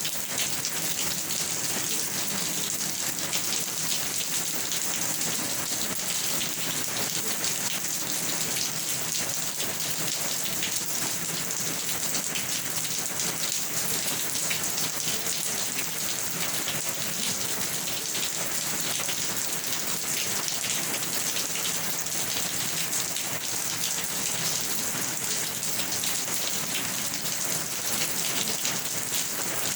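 Steady rain falling, a dense even patter of drops with a bright hiss.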